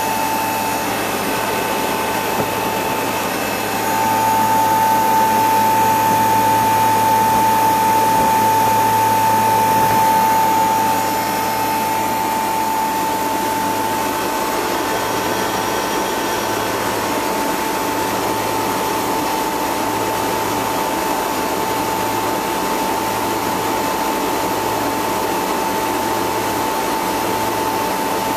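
Bristol two-speed hermetic refrigeration compressor on a milk-tank cooling unit, running just after start-up: a steady mechanical hum with a high steady whine, louder from about four seconds in to about eleven seconds in.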